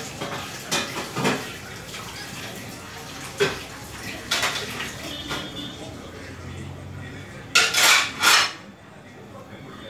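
Metal pots and utensils clattering: scattered knocks and scrapes, then three loud clanks in quick succession near the end.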